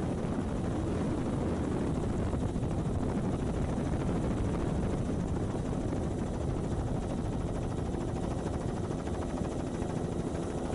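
Helicopter in flight heard from on board: a steady, dense drone of rotor and engine with a fast flutter.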